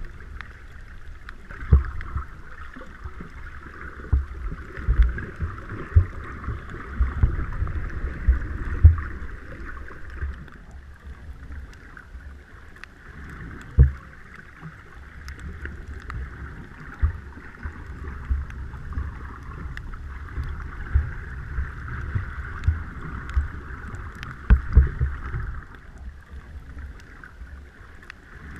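Muffled underwater sound as heard by a camera in its waterproof housing: water moving against the housing, with irregular low thumps and knocks over a steady hiss.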